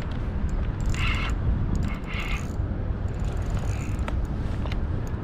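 Wind rumbling steadily on the microphone, with a few short rushing sounds and scattered faint clicks.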